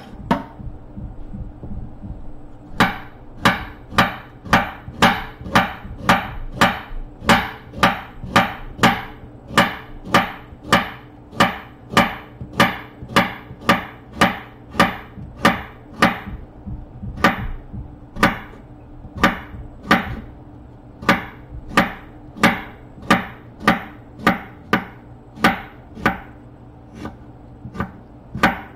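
A kitchen knife slicing a carrot into rounds on a wooden cutting board: steady knife strikes on the board, about two a second, starting a few seconds in, with a short pause around the middle. A faint steady hum lies underneath.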